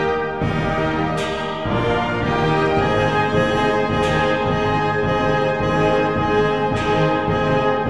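Orchestral music led by brass, playing sustained chords, with a sharp crash about every three seconds.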